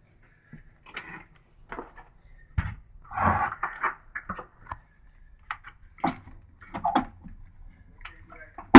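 Scattered knocks, clicks and scuffs of someone climbing a roof-access ladder while holding a camera, with a longer scraping burst about three seconds in and a sharp knock at the very end.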